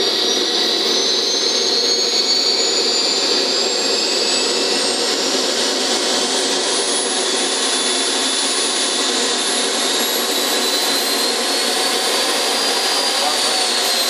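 Small RC model gas turbine running through its propane-assisted start, a loud steady rush with a high whine that rises in pitch as it spools up and dips slightly near the end.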